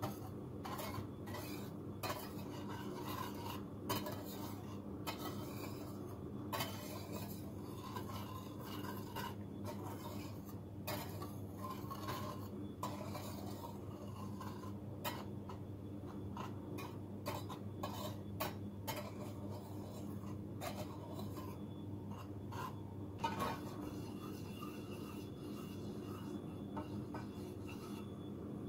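Metal wire whisk stirring granulated sugar in a stainless steel pan, with irregular scraping and clinking of the wires against the pan, over a steady low hum. The sugar is being heated dry to melt into caramel.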